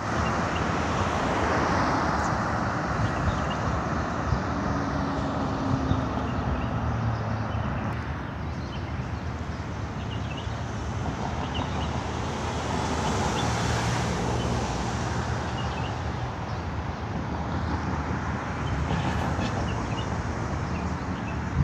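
Road traffic: a steady rush of car engines and tyres on a multi-lane road, swelling as vehicles pass near the start and again partway through.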